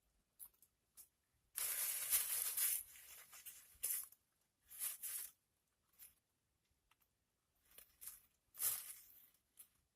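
Crinkling and rustling of food packaging in several short bursts, the longest and loudest a little under two seconds in.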